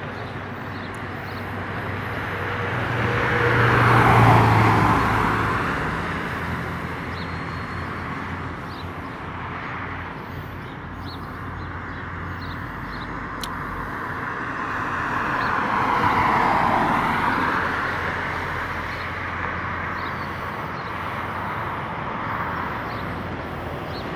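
Two vehicles passing close by, each swelling up and fading away, the first about four seconds in and the second about twelve seconds later, over a steady low engine hum.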